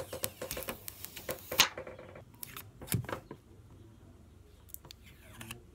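Clear plastic protective film being handled and peeled off a new smartphone. A dense run of crackles and clicks comes in the first two seconds, then a few scattered ones.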